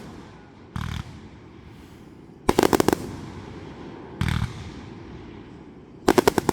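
Fireworks going off: a single bang about a second in, then a quick string of sharp cracks, another single bang, and a second rapid string of cracks near the end.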